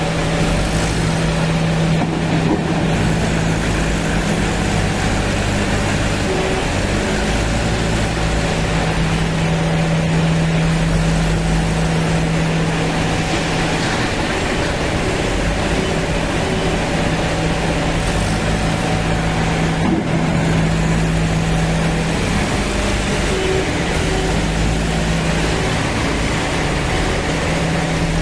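Kirloskar diesel engine of a JCB 3DX backhoe loader running at a steady speed, its pitch shifting a couple of times.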